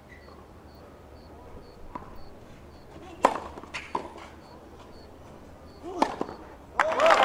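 Tennis rally: a few sharp pops of racket striking ball, spread between about three and six seconds in, the last as a player volleys at the net. Near the end the crowd suddenly breaks into applause and cheering.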